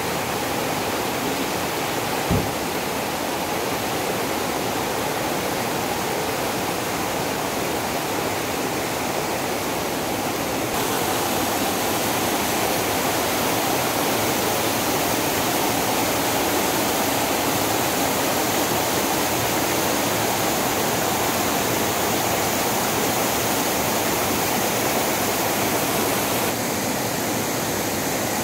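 Steady rush of rain-swollen mountain waterfalls cascading over rocks, a little louder from about ten seconds in. A single short knock comes about two seconds in.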